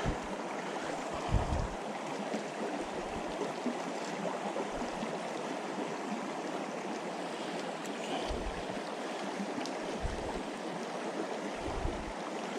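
Small mountain creek flowing steadily over rocks, with a few soft low thumps.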